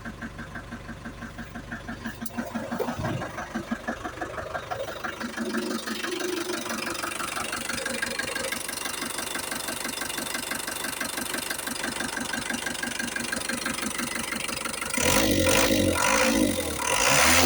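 Mk5 Ford Transit 2.5 litre diesel ('banana' engine) cranking with an even pulse for the first couple of seconds, catching, then idling steadily with diesel clatter. It gets louder twice near the end.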